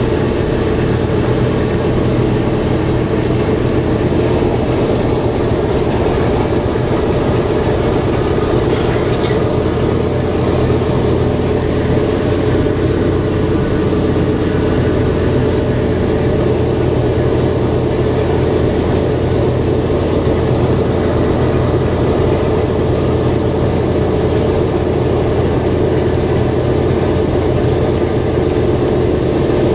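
The B-17 Flying Fortress's Wright R-1820 Cyclone radial engines running steadily at low power just after start, heard from inside the fuselage as a deep, even rumble. The low end grows fuller about nine seconds in.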